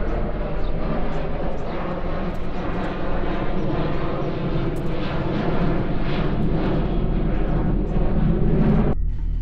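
Loud, steady engine rumble, growing a little louder toward the end and cutting off abruptly about nine seconds in, with a few light knocks over it.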